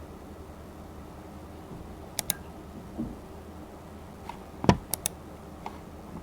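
Sparse clicking over faint room noise: a quick double click, a soft knock, then a louder dull thump followed by another quick double click and a last faint click.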